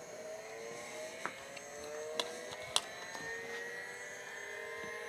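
Hard drive in an IBM PC XT 5160 spinning up: a whine that rises steadily in pitch and levels off toward the end, with a few sharp clicks around the middle. The start-up sounds normal.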